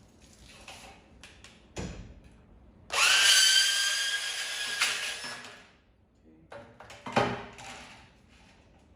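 Power drill spinning up sharply, running at a steady pitch for about two to three seconds, then winding down. There are single sharp knocks about two seconds in and again about seven seconds in.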